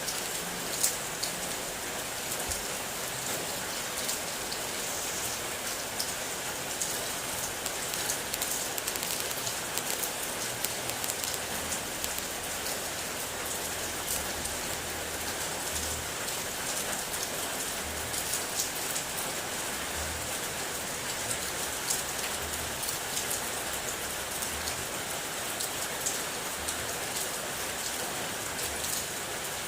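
Steady rain, with many individual drops tapping on a hard surface.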